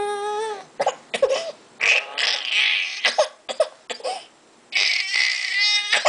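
Baby crying: a held wail that breaks off about half a second in, then a run of short sobbing cries and catches of breath, with a long high-pitched cry near the end.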